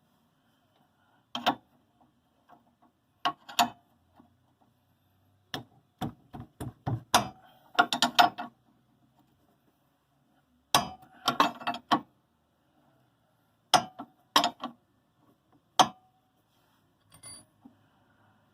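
A metal wrench clinking and clicking against the nut of a car's stabilizer link in irregular bursts, with quick runs of clicks about six to eight seconds in and again around eleven seconds. The wrench will not seat on the nut, which the mechanic thinks is fouled with sand.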